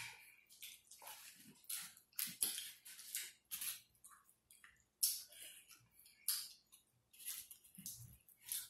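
Close-up wet eating sounds: irregular smacking and chewing with short squishes and crackles as boiled seafood meat and shell are pulled apart by hand, several small sounds a second.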